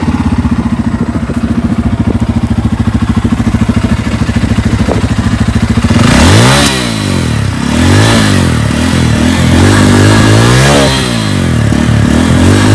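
Bajaj Pulsar F250's single-cylinder engine and exhaust, idling with a steady beat, then revved in about five rising-and-falling throttle blips from about six seconds in. It runs loud.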